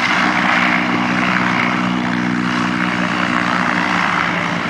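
Antonov An-2 biplane's nine-cylinder Shvetsov ASh-62 radial engine and propeller at high power on the takeoff run, a loud, steady drone with a rasping propeller noise over it.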